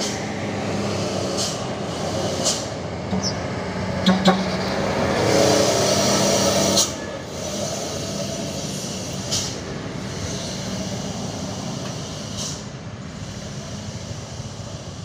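Diesel truck towing a loaded sugarcane trailer runs downhill past the listener. A few sharp knocks come through its engine sound, and a loud hiss rises about five seconds in and cuts off suddenly about two seconds later. The sound then slowly fades as the truck moves away.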